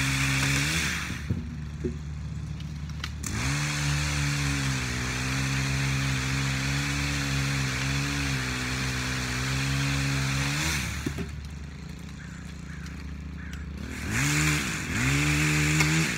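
An engine running steadily. Its pitch sags and comes back up several times, as if briefly loaded or throttled.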